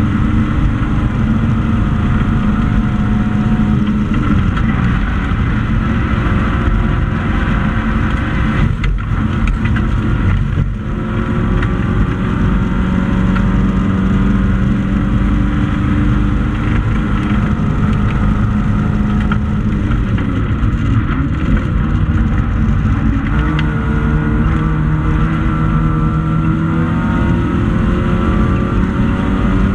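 Classic hatchback race car's engine heard from inside the stripped cockpit, running hard at racing speed. The note dips briefly about ten seconds in, then climbs again in pitch in the second half.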